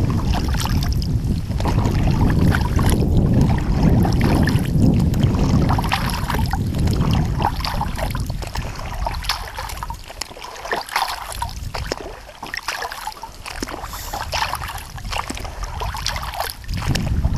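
Wind buffeting the camera microphone on an exposed fell summit, heavy for about the first half and easing later, with scattered small rustles and knocks.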